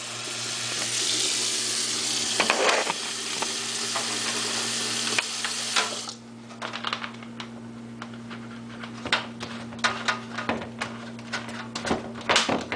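Warm water running from a kitchen tap into a plastic soda bottle, stopping abruptly about six seconds in. This is followed by scattered light clicks and knocks as the bottle is handled and set down on the sink.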